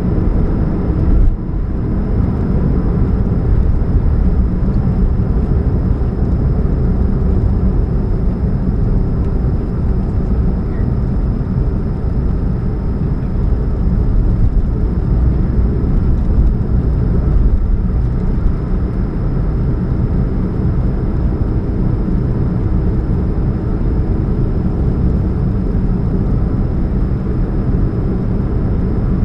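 Steady low rumble of a 2013 Chevrolet Spark under way, with a faint steady hum over it, which the owner puts down to a catalytic converter leak. A brief knock sounds about a second in.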